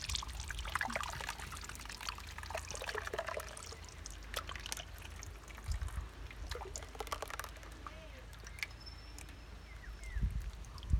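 A thick curd-and-spice marinade is poured from a steel bowl onto a whole raw lamb in a wide aluminium pan, landing in irregular wet plops and splatters. The pouring is busiest for the first seven or eight seconds, then dies down.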